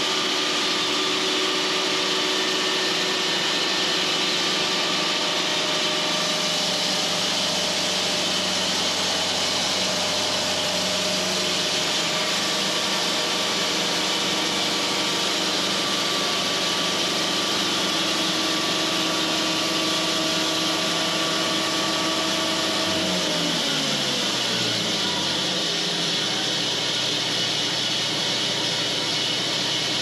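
Cook's AC-36 band sawmill running and sawing a slab off a big red oak log, its blade a little dull: a loud, steady machine noise with a hiss. A little over two-thirds through, the machine's hum slides down in pitch over about three seconds and settles low, while the running noise goes on.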